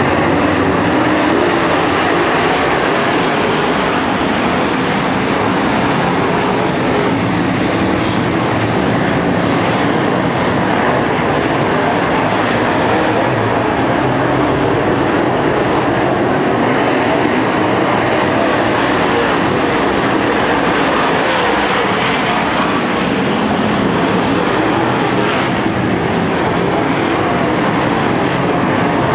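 A field of dirt late model race cars circling a dirt oval, their V8 engines running together in a loud, steady drone.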